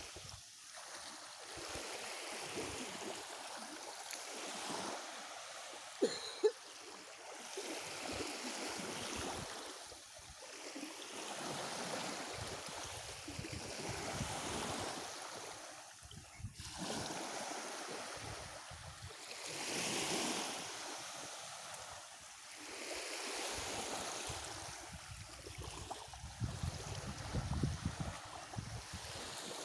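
Black Sea surf: waves breaking and washing up on the shore, swelling and fading every few seconds. Two sharp clicks about six seconds in, and a low rumble near the end.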